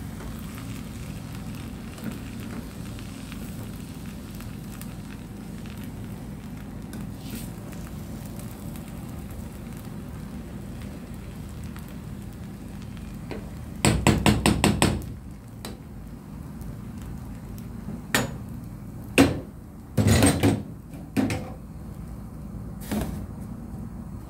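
Stirring rice in a metal pan with a spatula: a rapid run of about eight taps on the pan about halfway through, then a few scattered knocks and clinks of the spatula and a glass lid against the pan, over a steady low rumble.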